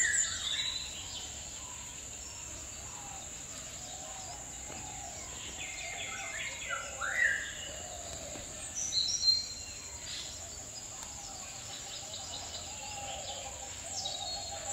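Birds chirping and whistling in short calls, loudest about six to seven seconds in and again around nine seconds, over a steady high-pitched drone of insects.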